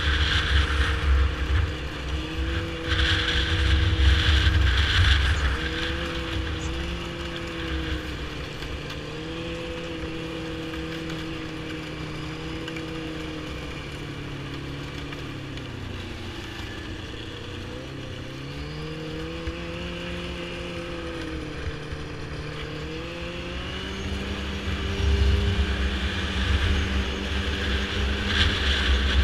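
Yamaha snowmobile engine running under way, its pitch rising and falling with the throttle, dropping lowest about halfway through and then climbing again. Wind rumbles on the microphone in louder stretches near the start and toward the end.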